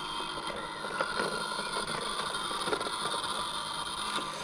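Bosch Indego S+ 350 robot lawnmower running as it mows, a steady whine of its electric motors over a faint hiss.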